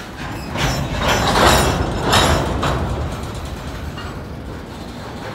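Freight car couplers and draft gear clanking during switching: a run of loud metallic banging and grinding surges from about half a second to three seconds in, over a steady low rumble.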